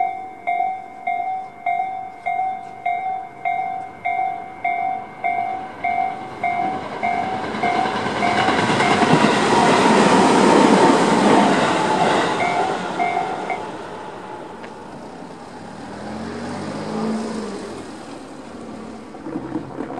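Japanese level-crossing electronic warning bell (Tobu 'sound C', slow-tempo type) dinging about twice a second while a Tobu 20400-series electric train runs through, its wheels and running noise loud for several seconds. The bell stops about two-thirds of the way in, and a car's engine is heard faintly near the end.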